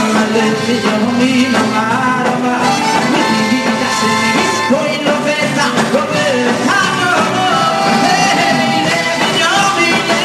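Live band music with a male lead singer: a Jewish pop song performed in concert.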